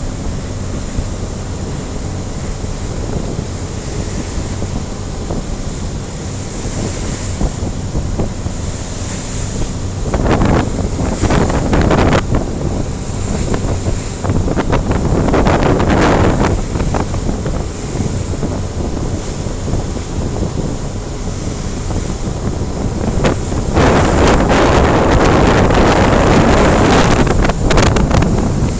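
Boat engine running steadily as the boat crosses rough, wave-tossed sea, with wind and water rushing over the microphone; the rushing swells into loud surges several times, longest near the end.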